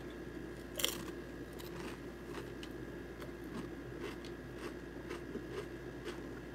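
Chips being bitten and chewed by mouth: one sharp crunch about a second in, then fainter crunching as they are chewed.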